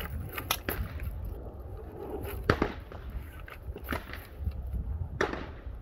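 Clicks and knocks of a CZ Scorpion Evo 3 carbine being bounced on its sling, its folded stock rattling loose, with the sharpest click about two and a half seconds in. A steady low wind rumble on the microphone underneath.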